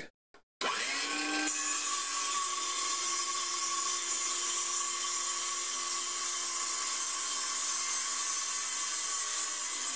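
DeWalt 24-volt cordless circular saw with a 6.5-inch blade, spinning up about half a second in and then running steadily as it cuts thin sheet stock. It is powered from a 20-volt Milwaukee M18 battery wired in through alligator clips.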